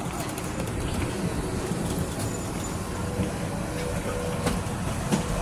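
Steady running noise inside an airport shuttle train carriage, with scattered clicks and knocks from passengers and luggage moving about.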